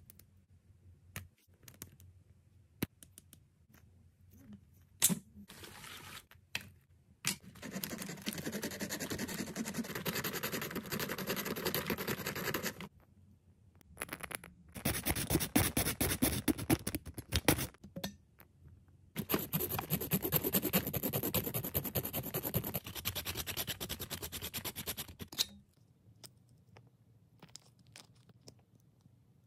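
Fingers scratching and rubbing at a miniature plastic Bazooka bubble gum tub in three long spells, after a few light taps and clicks.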